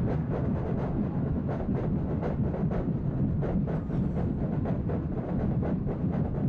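Football stadium crowd roaring, with a quick, steady beat of sharp strikes running through the noise, several a second.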